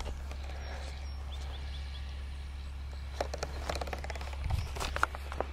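Open-air ambience: a steady low rumble with a few faint chirps, and a run of light clicks and taps in the last two seconds or so.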